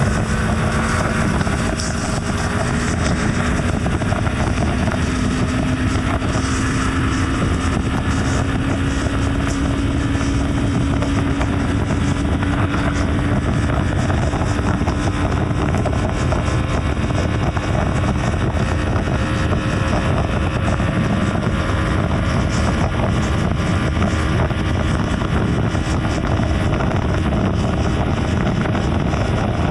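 BMW G310 R's single-cylinder engine running at highway cruising speed, heard from on the bike, its note creeping slowly up in pitch. It sits under a steady rush of wind and road noise.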